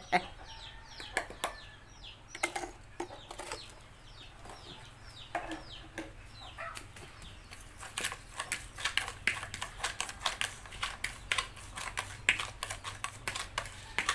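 A metal spoon clicks and scrapes against a plastic bowl while stirring chopped spring onions and chillies. The clicks come much faster and denser in the second half. Short chicken cheeps sound in the background during the first half.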